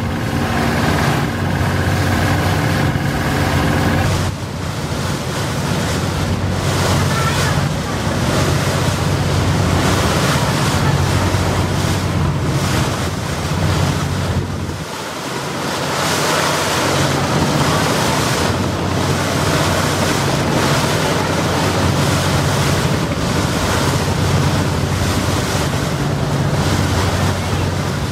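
Wind buffeting the microphone over the rush of river water, with the low steady drone of passenger launch engines beneath.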